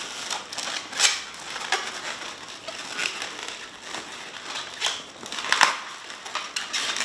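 Latex modelling balloons rubbing against each other and against hands as they are twisted together: a run of irregular scratchy rubbing sounds, with sharper cracks about a second in and near the end.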